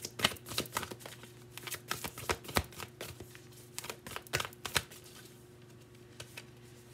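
A deck of oracle cards being shuffled hand over hand: a quick, uneven run of soft card slaps and clicks for about five seconds, then only a few faint ticks.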